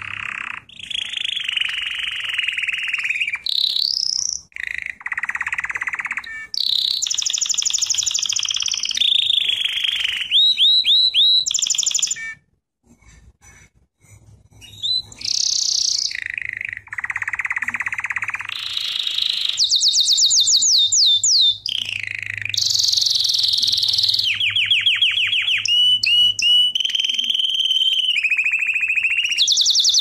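Domestic canary singing a long song of rapid trills and rolls, each run repeating one note many times before switching to another, higher or lower. The song breaks off briefly about twelve seconds in, then carries on.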